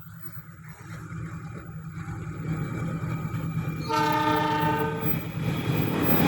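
A train approaching, its rumble growing steadily louder, with one horn blast of just over a second about four seconds in.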